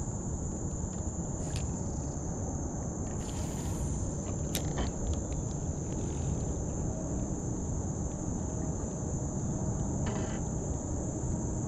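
Steady, unbroken high-pitched chorus of crickets trilling, over a low rumbling noise, with a few faint clicks.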